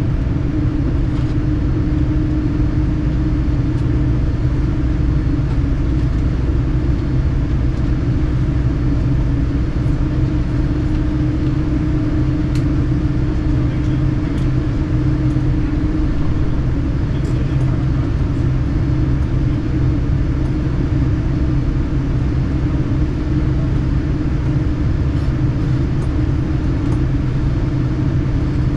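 Steady low rumble with a steady hum inside the cabin of a Boeing 787-9 taxiing on the ground, its engines running at low power.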